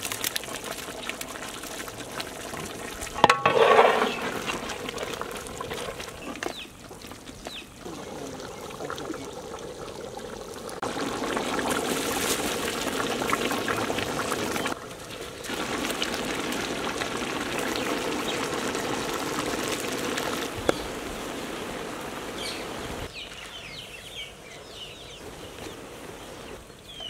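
Long-grain rice falling in handfuls onto hot, steaming mutton masala in a large pot: a steady hiss and patter of grains and simmering sauce, in several stretches that change level abruptly. A brief loud pitched cry stands out about three seconds in.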